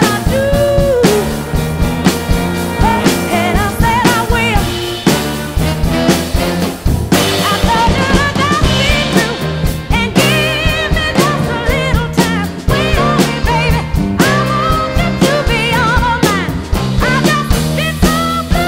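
Drum kit played live along to a recorded song with a singer: a steady groove of drum and cymbal hits under the track's vocals and band.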